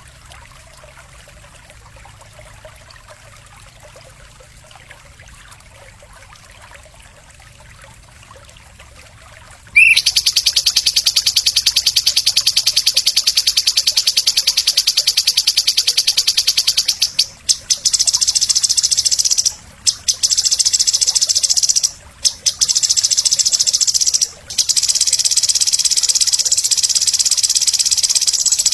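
A loud, high, very rapid buzzing trill from a masteran songbird-training recording. It starts suddenly about ten seconds in, after faint background hiss, and has a few brief breaks.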